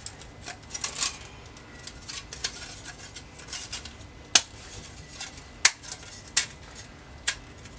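Small metallic clicks and clinks as a car radio's sheet-metal mounting sleeve and bracket are handled and fitted together, with a few sharper clicks in the second half.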